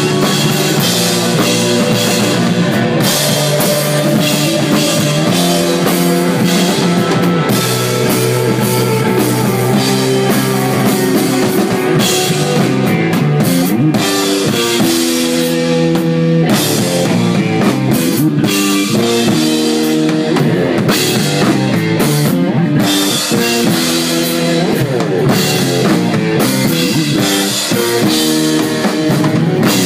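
A rock band playing live and loud: drum kit, electric guitar and bass in a desert rock piece.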